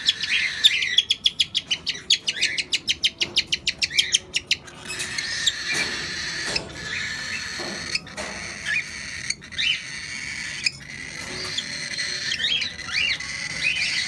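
Young fallow cockatiels calling during syringe hand-feeding: a fast, rhythmic rasping call of about seven pulses a second lasting about four seconds, typical of begging for food, then a softer steady hiss with scattered chirps.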